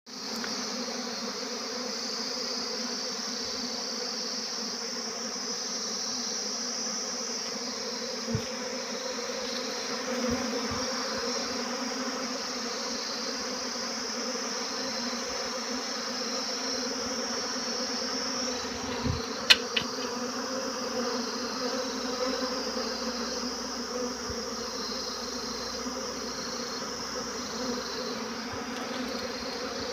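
Swarm of honeybees buzzing: a dense, steady hum of many wingbeats, with a steady high-pitched hiss above it. A few sharp clicks and knocks stand out about two-thirds of the way through.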